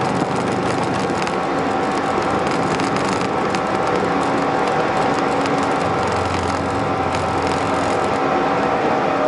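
Flight-deck noise of an Airbus A320-214 with its CFM56-5B4 engines at takeoff thrust, a steady rush of engine and airflow noise with a constant hum, as the aircraft rotates and climbs out.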